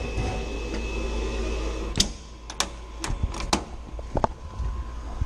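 Sandblast (bead blast) cabinet being shut and readied: a steady hum, then from about two seconds in a run of sharp knocks and clicks as the lid comes down and the part is handled inside the cabinet.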